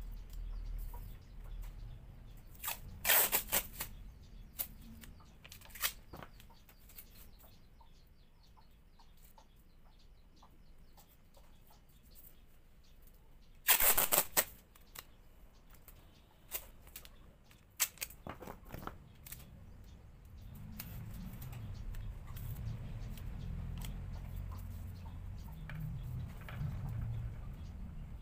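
Masking tape pulled off the roll and torn in a few short rips, the loudest about halfway through, with small handling rustles between them. A low rumble rises in the background for the last third.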